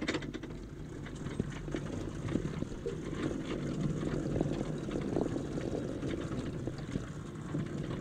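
Wheels of a 7¼-inch gauge railway vehicle rolling along the track into a tunnel: a steady low rumble with many small irregular clicks and knocks from the wheels and rail joints.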